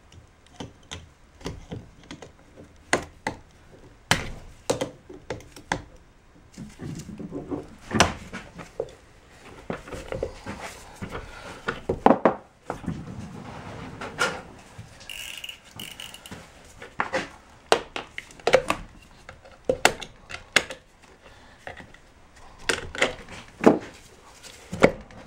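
Irregular clicks, knocks and clatter of hand tools working the boot clips off an ATV drive axle's outer CV joint held in a bench vise, with metal parts handled and set down on the bench.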